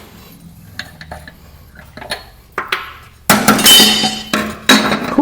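Metal parts of a garden tractor mower deck clinking and rattling as it is worked on by hand, with a louder metal clatter and ringing about three seconds in.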